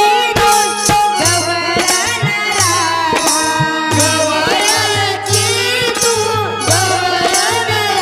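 Young woman singing a melody through a PA microphone, backed by steady beats on a barrel drum and rhythmic jingling percussion.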